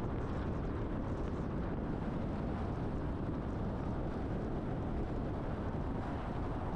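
Steady road noise of a truck driving along: a constant low rumble with wind and tyre hiss, unchanging throughout.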